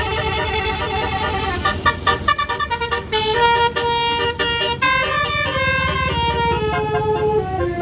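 A bus's basuri telolet horn playing a tune of stepping notes, with a fast run of short notes about two seconds in. The bus's engine runs underneath.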